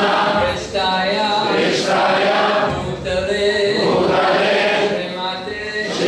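A group of devotees chanting a devotional kirtan together, led by one amplified male voice, in sung phrases of about a second each over a steady low drone.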